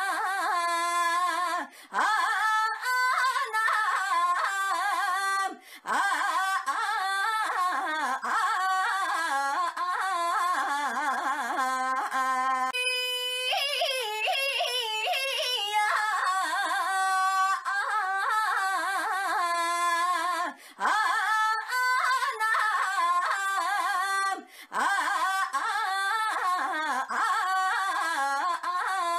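A woman's high-pitched voice repeatedly crying out the sing-song nonsense word "ainya", sliding up and down in pitch, with short breaks every few seconds.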